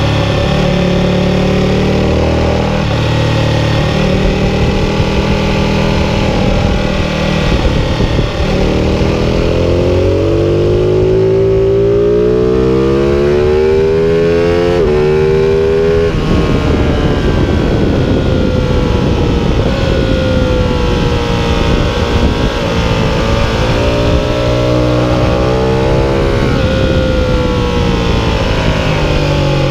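Ducati 1299 Panigale's 1285 cc Superquadro V-twin engine at high revs on track, its pitch climbing steadily under hard acceleration, dropping suddenly about halfway through, then running on at a steadier pitch that eases off and climbs again near the end. Wind rush at speed runs under the engine.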